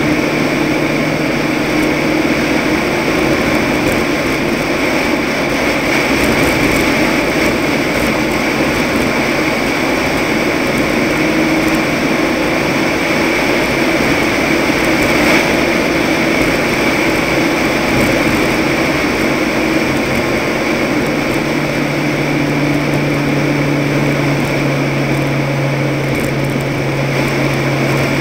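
Toyota pickup truck driving at speed: steady engine note under loud road and wind noise. The low engine note strengthens about three-quarters of the way through.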